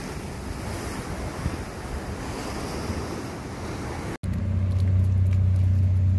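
Waves washing on a rocky shore with wind on the microphone. About four seconds in it cuts abruptly to a louder, steady low hum.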